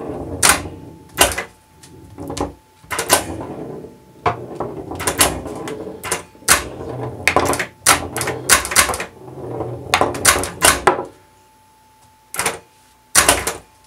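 Solenoid flippers of a home-built pinball table clacking again and again as they fire, some in quick pairs, over the rumble of a steel ball rolling and knocking across a chipboard playfield. The rolling stops about three-quarters of the way through, and two last flipper clacks follow.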